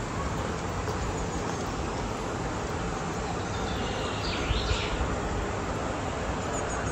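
Steady rushing outdoor noise with a low rumble throughout, and a short bird call a little past the middle.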